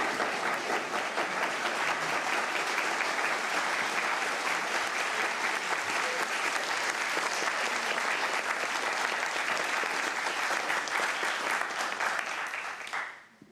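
A roomful of people applauding, a steady, dense clapping that dies away shortly before the end.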